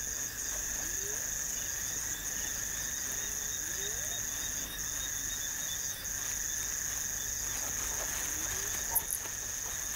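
Night insects trilling steadily in a continuous high-pitched chorus that breaks briefly a few times, with a few faint short rising sounds underneath.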